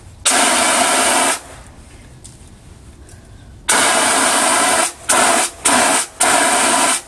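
5-pound CO2 fire extinguisher discharging into a cloth bag taped over its nozzle, in loud hissing blasts: one about a second long, then after a pause a longer blast followed by three short ones. The expanding carbon dioxide freezes into dry ice snow inside the bag.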